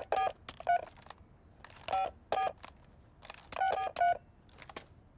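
Telephone keypad beeps as a number is dialed: about eight short beeps in uneven groups, with light button clicks between them.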